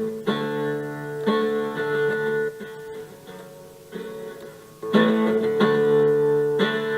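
Guitar chords strummed and left to ring, played through a Simulink audio-effects chain of delay, tremolo, flanger and reverb with the stereo panner bypassed. The chords fade to a quieter stretch near the middle before the strumming picks up again.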